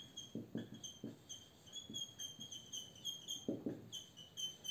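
Faint handwriting sounds: short pen strokes and taps, with a run of short high-pitched squeaks of the writing tip repeating every fraction of a second.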